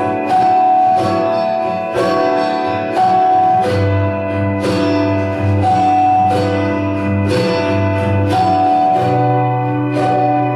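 Instrumental karaoke backing music with no voice: a melody of separate notes, about one a second, over held chords and a bass line.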